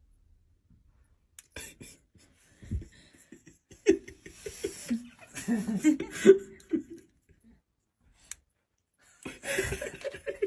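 A person laughing and giggling in short bursts, with audible breaths. The laughter is densest from about four to seven seconds in and comes again near the end.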